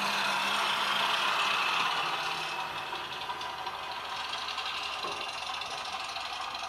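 Model diesel shunting locomotive (DR BR 100 Kö II) running, its LokSound sound decoder playing a small diesel engine sound through the onboard speaker, with a rattling running noise. A low hum in the sound fades out about one and a half seconds in, and the sound gets a little quieter.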